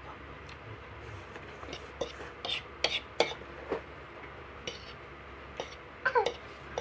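Family eating: scattered sharp clinks of forks on plates, with mouth clicks and slurps of noodles and chewing. There is a brief falling squeak near the end.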